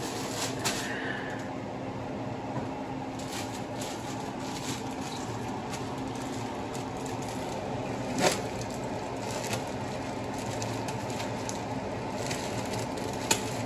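Chicken frying in oil in a pan on a gas stove, a steady sizzle with faint crackles. A single sharp knock comes about eight seconds in.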